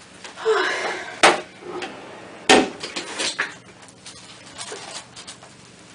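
Two sharp knocks, the first about a second in and the second just over a second later, with lighter handling and clatter around them.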